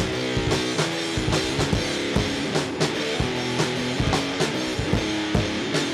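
Rock band playing an instrumental passage between vocal lines: guitar over a drum kit keeping a steady beat.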